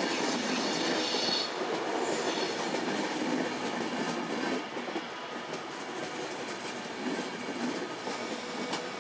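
Class 390 Pendolino electric train rolling slowly along the platform, with steady wheel-on-rail noise and a thin, high wheel squeal in the first second or so.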